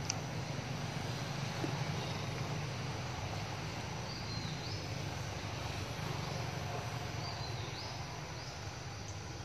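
Outdoor ambience: a steady low rumble under an even background hiss, with a few short, high, upward-sliding chirps, twice in small groups.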